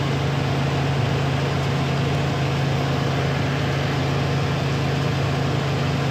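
Silo-filling machinery running steadily: a self-unloading forage wagon's spiral beaters and conveyor unloading chopped forage, with the tractor and silo blower droning behind it. It is an unbroken mechanical drone with a strong low hum.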